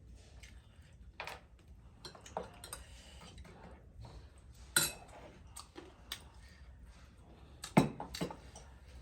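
Tableware clinking and tapping: a spoon or fork against a plate or bowl, with scattered sharp clinks, the loudest about five seconds in and again near eight seconds.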